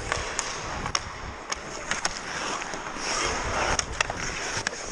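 Ice hockey skates scraping and carving across the ice, with a louder stretch of scraping about three seconds in, and scattered sharp clicks of hockey sticks hitting the ice.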